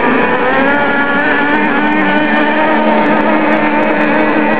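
Radio-controlled mono-hull nitro boats with O.S. 46 glow engines running flat out across the water. The engines make a steady high-pitched whine that wavers slightly in pitch.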